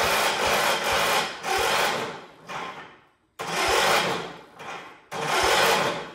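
Electric starter cranking the 1978 John Deere 316's Onan twin-cylinder engine in several bursts of about a second each, turning it over in even pulses without it catching. The owner blames the starter and thinks it needs to be torn down and rebuilt.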